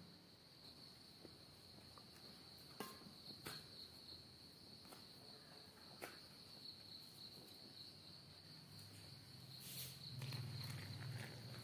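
Near silence: a hand mixes wheat flour in a steel bowl, with a few soft clicks and a soft rustle near the end. A faint steady high-pitched trill runs underneath.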